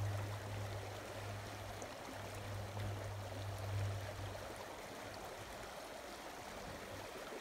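Mountain creek running over rocks, a steady rushing hiss. A low steady hum sits underneath and fades out about halfway through.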